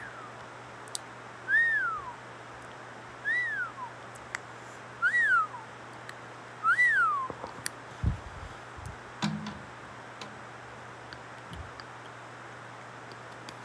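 A cat meowing four times, roughly every one and a half to two seconds; each call is high and rises then falls. A few low knocks follow near the middle.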